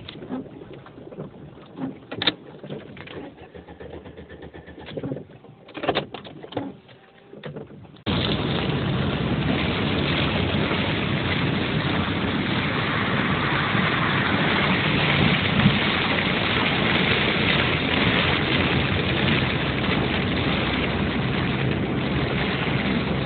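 Heard from inside a car: a few scattered quiet clicks and knocks, then about eight seconds in a sudden steady loud rush of heavy rain and flood water against the car, which keeps on.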